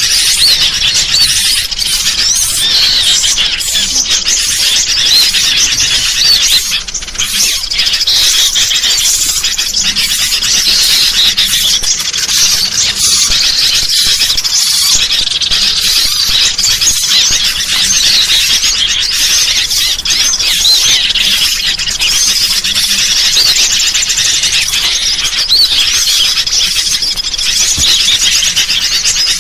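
Dense, continuous chorus of bird calls: sooty-headed bulbuls (kutilang) chattering noisily, mixed with the high chirps of small birds, overlapping without a break.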